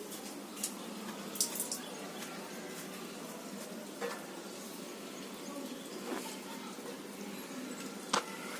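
Steady hiss of air from a refrigerator's fan, broken by a few light clicks and taps, the sharpest near the end.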